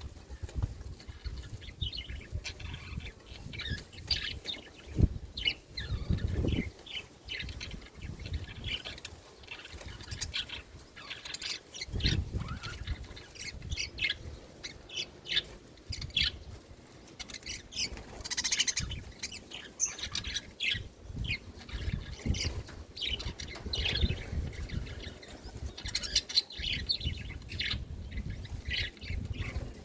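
A group of budgerigars chirping and chattering, with many quick overlapping chirps throughout. Low, muffled thumps and rumble come and go underneath.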